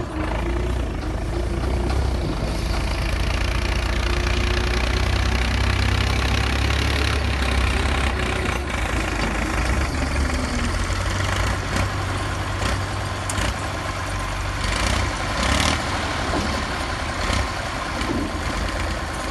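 Excavator's diesel engine running steadily at work, a deep steady drone, with a few short sharp noises from the machine over it, several together about fifteen seconds in.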